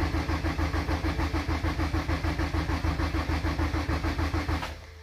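Honda Civic engine cranking over on its starter motor with a fast, even chug and no firing, priming the oil system to build oil pressure. The cranking stops abruptly near the end.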